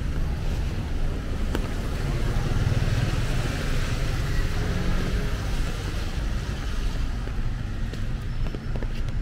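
Road traffic on a rain-soaked street: cars and a motorcycle driving past with tyre hiss on the wet road over a steady low rumble, one engine swelling louder about three seconds in.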